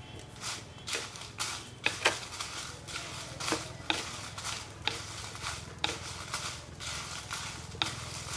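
Wooden spatula stirring and scraping dry red chillies as they roast in a little oil in a pot, in short strokes about twice a second, over a steady low hum.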